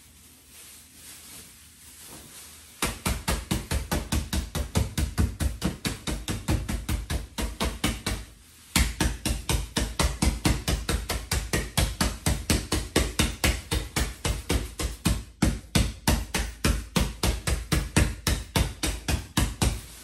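Wooden spoon rapidly beating a plastic bag of Oreo cookies on a leather couch cushion, crushing them into crumbs, about five strikes a second. The beating starts about three seconds in and stops briefly near the middle before going on.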